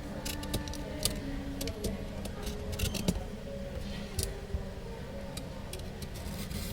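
Scattered small clicks and taps, about one every second or so, from handling a phone and small tools on a work desk, over faint background music.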